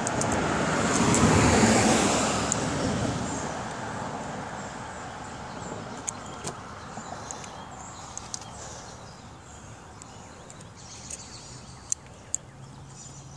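A car driving past, its road noise swelling to a peak a second or two in and fading away over several seconds. A few faint sharp clicks follow.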